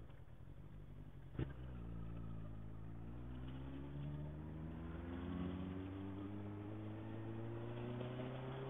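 Motorcycle engine running at low revs, a single sharp click about a second and a half in, then the engine note rising slowly and steadily as the bike gathers speed.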